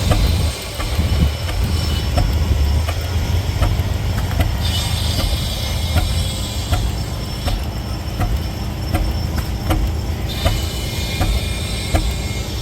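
Antique engine running steadily, a low rumble with a sharp click recurring about every two-thirds of a second.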